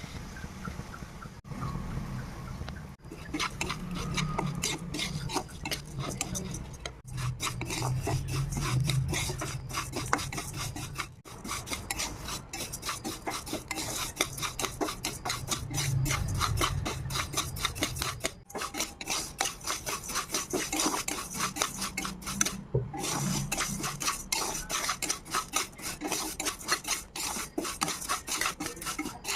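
Spatula scraping and stirring rice grains around a pan as the rice is fried, in rapid, repeated rasping strokes with a few short pauses.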